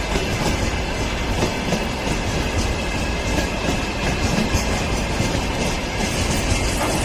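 Freight train rolling past at close range: a steady, loud rumble with the wagons' wheels clicking over the rail joints.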